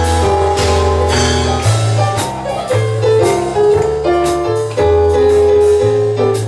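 Instrumental music with no singing: sustained piano or keyboard notes over a moving bass line and a steady drum beat.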